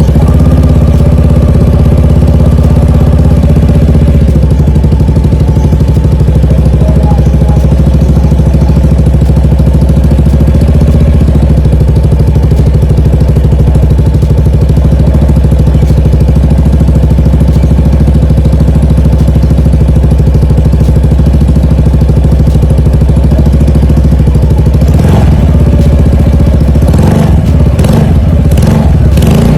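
Yamaha NMAX scooter's single-cylinder engine idling steadily and loudly through an aftermarket Burnout full-system exhaust, then revved in a few quick blips near the end.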